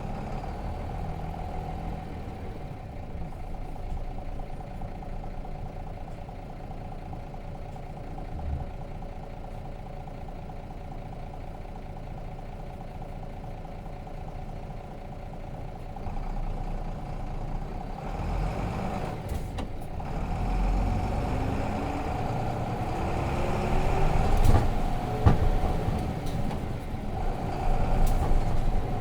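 Nissan Diesel RM bus's FE6 straight-six diesel engine running, heard from inside the bus: steady at first, then louder through the second half, with the engine pitch rising as the bus accelerates and a few knocks and rattles near the end.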